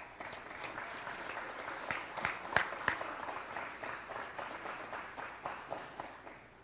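Audience applauding, starting suddenly and fading out near the end. A few sharp, louder claps close to the microphone stand out a little after two seconds in.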